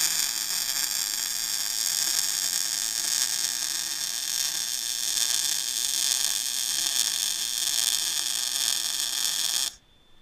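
Welding arc on steel, a steady hiss and buzz that stops abruptly after about ten seconds.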